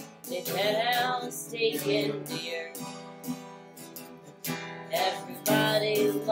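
Strummed acoustic guitar accompanying a woman singing a folk-style song, with a short guitar-only stretch in the middle.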